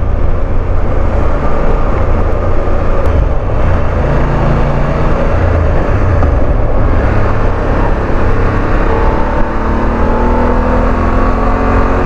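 BMW F 850 GS parallel-twin engine running at a steady cruise of about 70 km/h, under a heavy low wind rumble on the bike-mounted camera's microphone. The engine pitch rises slowly over the last few seconds as the bike picks up speed.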